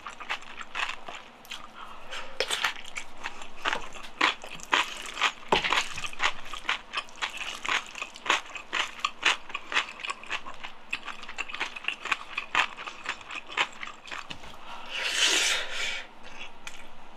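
Close-miked chewing of jjajang rice: a steady run of wet mouth clicks, smacks and crunches, with a longer noisy burst about fifteen seconds in.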